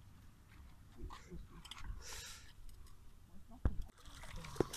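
A person wading into a swimming pool: a brief splash of water about two seconds in, then two dull thumps near the end.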